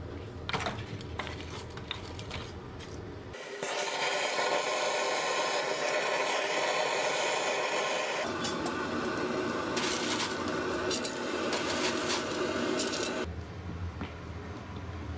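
A gas torch's flame blowing into a coal forge makes a loud, steady hiss. The hiss starts suddenly a few seconds in, drops lower in pitch about halfway, and cuts off near the end. Before and after it there is a low hum with a few light clicks.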